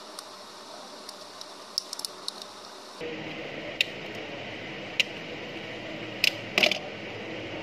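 Sharp plastic clicks and snaps from a Samsung E1200Y keypad phone's housing as it is handled and prised apart. A few scattered clicks come first, then a close cluster near the end, over a steady hiss that gets louder about three seconds in.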